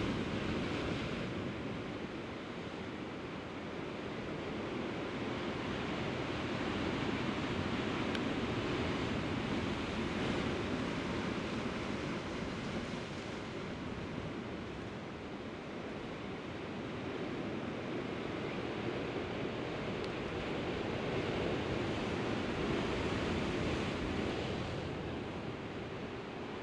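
Sea surf washing against a rocky shore, swelling and easing slowly every several seconds.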